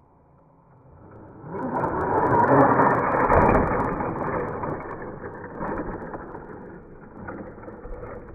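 Hosim 9125 RC stunt truck's electric motor and gears whirring loudly as it goes to full throttle and throws itself into a standing backflip, running on a 4S battery. The whir starts about a second and a half in, is loudest around the flip, then fades and stops abruptly near the end.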